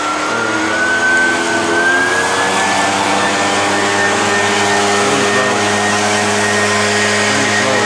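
Gas-powered leaf blower running loudly, its whine rising in pitch over the first few seconds and then holding steady.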